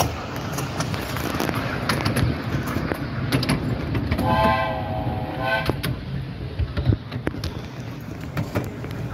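A miniature railway locomotive sounds one blast of about a second and a half on its whistle, a chord of several tones, a few seconds in. Under it runs the steady rumble of the moving train, with repeated clicks of its wheels on the track.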